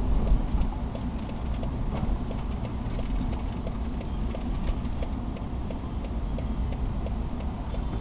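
Vehicle driving on a highway, heard from inside the cabin: a steady low road and engine rumble with a run of light clicks and rattles over it.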